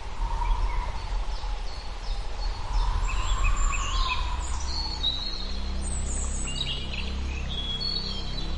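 Several birds chirping and trilling over a steady low rumble. About halfway through, steady low held tones come in beneath the birdsong.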